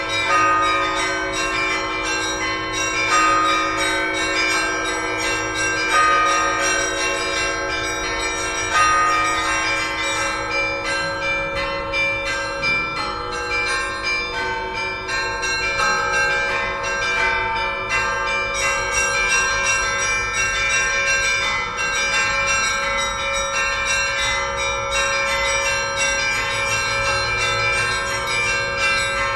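Orthodox church bells rung together in a festive peal: many bells of different pitches struck in quick succession, their tones overlapping and ringing on. Heavier strokes land about every three seconds in the first ten seconds or so.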